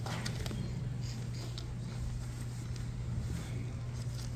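Auditorium room noise while an audience waits: a steady low hum with scattered small clicks and rustles, a cluster of them just at the start.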